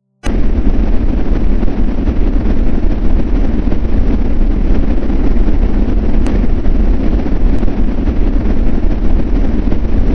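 A loud, steady rumbling roar, a continuous noise heaviest in the low end, cutting in abruptly at the start.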